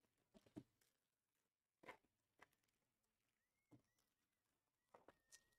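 Near silence with a few faint, short taps and rustles: trading-card packs being handled on a table. A faint, thin high tone comes in a little past the middle.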